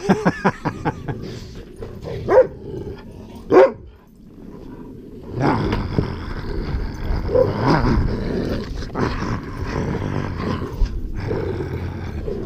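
Dogs barking and growling in play: a quick run of short barks at the start, two louder single barks a couple of seconds in, then a long, noisy stretch of growling.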